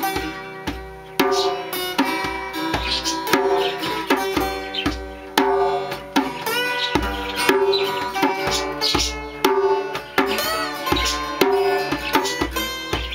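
Three acoustic guitars strummed and picked together over a hand drum played with the palms, an instrumental jam with a steady beat and a few sliding guitar notes.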